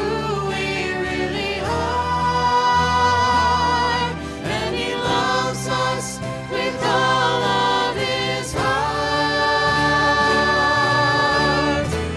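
Live worship band playing and singing a song: several voices over guitars and keyboard, the singers holding long notes in the last few seconds.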